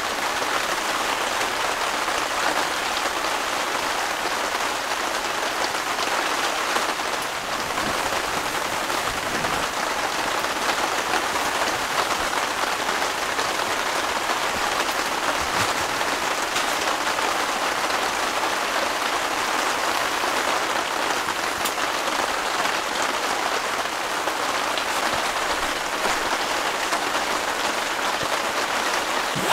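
Steady rain falling on a tent's roof and panels, heard from inside the tent as an even, unbroken hiss.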